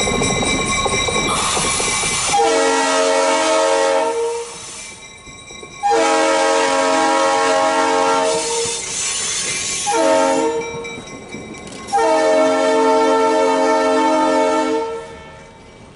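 Diesel locomotives passing close by with loud engine and wheel noise, then a Leslie RS3L three-chime air horn blowing four blasts: long, long, short, long, the standard grade-crossing signal.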